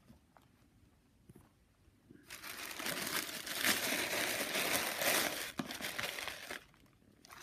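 Tissue paper crinkling and rustling as a hand rummages through packing in a cardboard box. It starts about two seconds in, lasts about four seconds, and stops; there are a few faint ticks before it.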